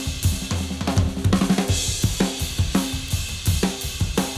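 Played-back recording of a Tama Starclassic birch/bubinga drum kit (26" kick, 13" and 16" toms, Kapur snare) playing a fast pop-punk beat, miked with only four dynamic mics. It is heard through the drum bus, with light compression and SSL channel EQ taking out some low mid. A cymbal crash rings out near the middle.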